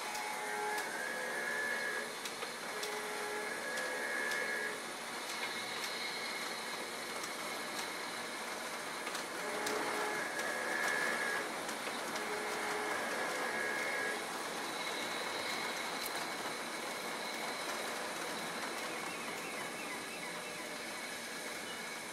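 Model freight train running on its track, a steady rolling noise, with short pitched tones coming and going over it.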